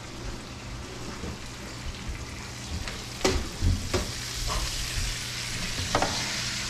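Baked chicken wings sizzling in hot fat on a rack pan just pulled from the oven, the sizzle growing louder in the second half, with a few sharp metal knocks as the pan is handled.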